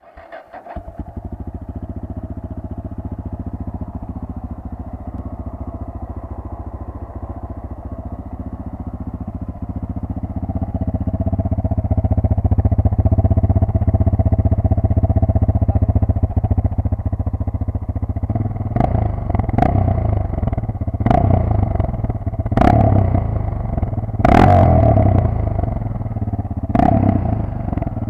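Yamaha XTZ 660 Ténéré's single-cylinder four-stroke engine idling steadily, then revved in about six sharp throttle blips in the second half.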